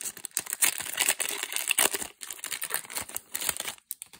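Shiny foil wrapper of a Magic: The Gathering draft booster pack crinkling and crackling as it is torn open and peeled off the cards by hand. The dense crackle stops just before the end.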